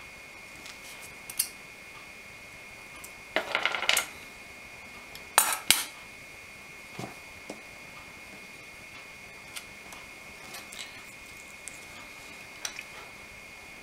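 Small hand tools and parts being handled on a workbench: scattered light clicks and clinks, a short scraping rattle a few seconds in and a louder double clatter shortly after, over a faint steady high whine.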